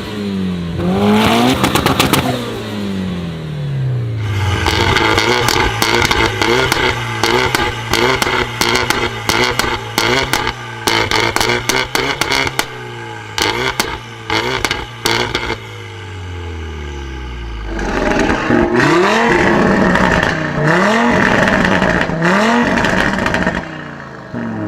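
Modified car with a loud aftermarket exhaust being revved. It starts with quick throttle blips, then holds steady revs for a long stretch with rapid, irregular exhaust pops and crackles. The revs then fall away, and a new series of throttle blips comes near the end.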